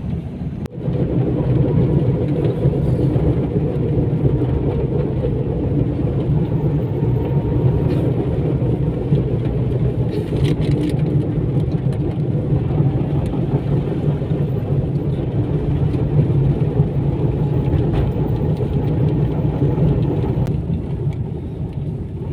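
Car engine and tyre noise while driving, a steady low drone that picks up sharply about a second in and then holds.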